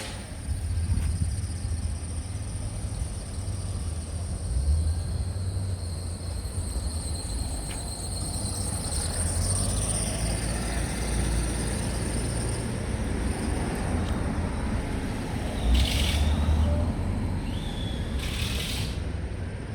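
Street traffic: a steady low rumble of passing vehicles, with two short hisses a couple of seconds apart near the end.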